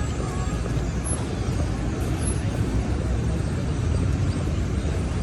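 Steady city street traffic noise: a continuous low rumble of passing vehicles, with no single event standing out.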